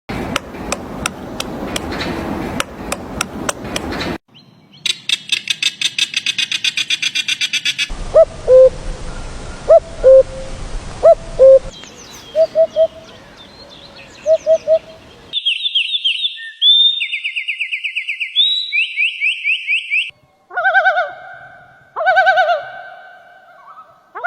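Several different birds calling and singing, one recording cut abruptly into the next. First comes a noisy stretch with clicks, then a fast run of high repeated notes. Next are short low notes, then quick high trills that fall in pitch, and near the end repeated two-part calls.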